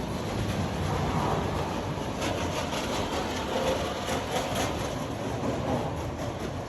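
Roller coaster train running along its steel track, a steady rolling noise with no break.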